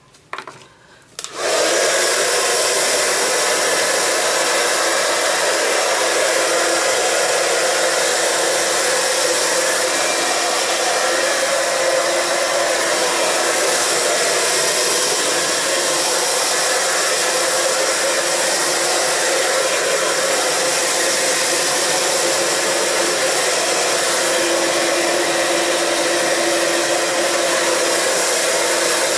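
Handheld hair dryer switched on about a second in after a short bump, then blowing steadily with a low steady tone under the rush of air.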